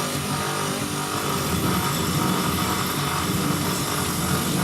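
Electric grinder running steadily with a continuous motor whine.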